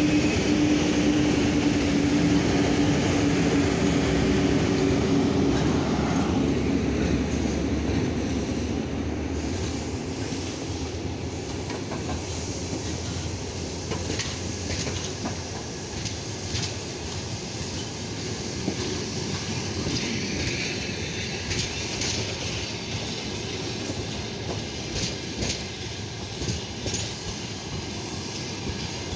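VL82M electric locomotive going past with a steady hum for the first few seconds, then its passenger coaches rolling by as the train moves off: a continuous rumble of wheels on rails with scattered clicks over the rail joints, slowly fading.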